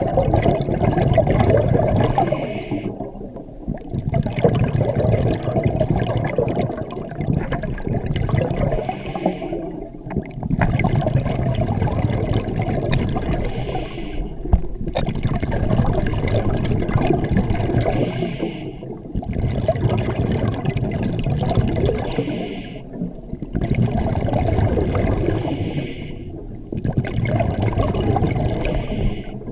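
Scuba diver breathing through a regulator underwater, heard through the camera housing: six breaths, each a short hiss of inhaling through the regulator followed by a longer loud burble of exhaled bubbles.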